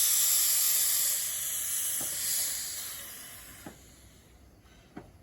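Steam hissing loudly from the Bure Valley Railway locomotive Spitfire, dying away over about three and a half seconds, with a few light metallic clicks.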